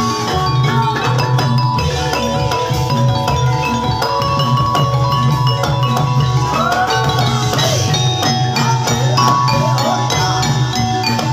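Live jathilan gamelan music: metal mallet instruments ring steady, overlapping notes over continuous drum beats. A gliding melodic line rises and falls over the ensemble about six and a half seconds in, and again near the end.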